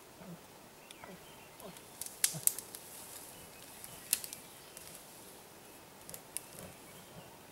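A black bear moving through brush and undergrowth close by: a few sharp snaps and clicks, the loudest two about two seconds in, another about four seconds in and a smaller one near the end.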